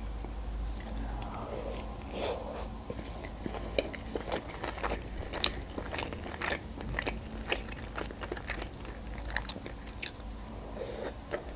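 Close-miked chewing of sushi rolls: irregular mouth clicks and smacks throughout, with another roll bitten into near the end.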